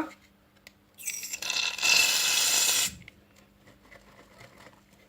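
Aerosol can of shaving foam spraying with a hiss. It starts about a second in, gets louder after another second, and cuts off after about two seconds.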